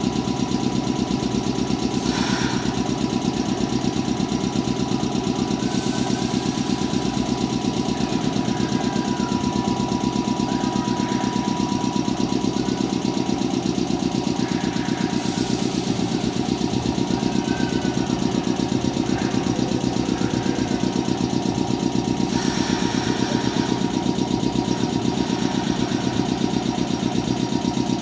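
Steady machinery hum of a standing Nankai 10000 series electric train, with a fast, even pulse and a steady whine. Short hisses come about 2, 6, 15 and 22 seconds in.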